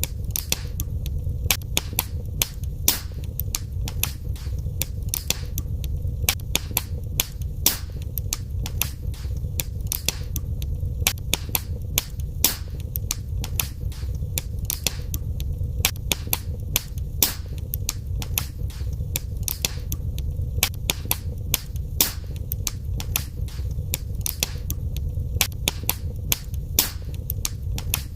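Fire in a fireplace crackling, with sharp irregular pops and snaps several times a second over a steady low rumble.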